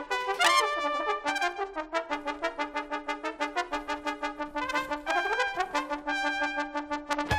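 Trumpet and trombone playing fast repeated staccato notes, mostly hammering on one pitch, with a rising glide in pitch just after the start and again about five seconds in.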